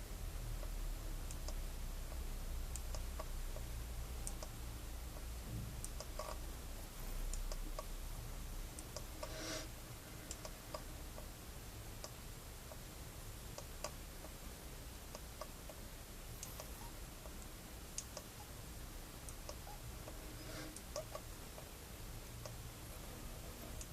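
A sleeping hamster snoring: faint, irregular small clicks, with two short breathy sounds, one about ten seconds in and one about twenty seconds in.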